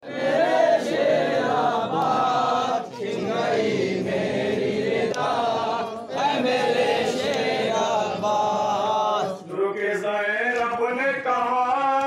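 Men chanting a noha, a Shia mourning lament, in chorus. Several voices sing long drawn-out melodic phrases together, with a short break about three seconds in.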